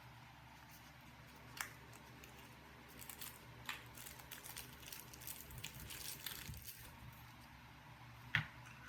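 Faint handling sounds: a few sharp clicks, about a second and a half in, near four seconds and near the end, with light rustling and scraping between them.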